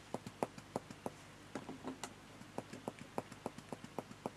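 Light, quick tapping of a tool dabbing colour onto paper, about four taps a second, fairly steady, to cover a large area.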